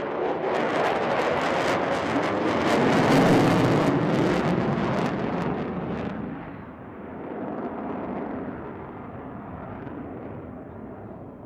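F-22 Raptor's twin Pratt & Whitney F119 turbofan jet engines as the fighter flies overhead: loud jet noise full of sharp crackling, peaking about three to four seconds in, then fading, with a smaller swell near the end.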